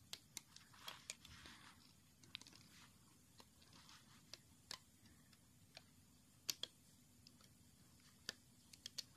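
Near silence with scattered faint clicks and ticks, the loudest about six and a half seconds in: a metal loom hook and latex rubber bands being worked over the clear plastic pegs of a Rainbow Loom.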